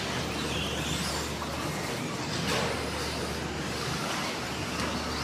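Electric RC stadium trucks racing on a dirt track: motors whining up and down in pitch over the rush of tyres on the clay, with an occasional knock as a truck lands or hits something, one of them about halfway through.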